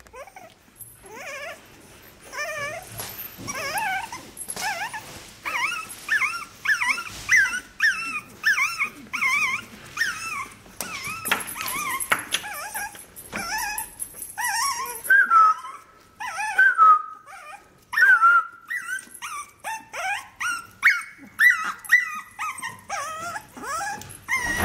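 A litter of month-old puppies whining and yipping: many short, high-pitched cries that waver up and down in pitch, following one another closely.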